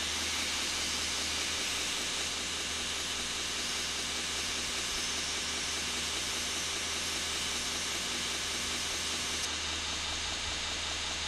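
Belt grinder running with a carbon-steel knife blade held against the belt on the platen, a steady grinding hiss over the motor's hum, while the bevel is finish-ground freehand. Near the end the hiss changes slightly as the blade comes off the belt.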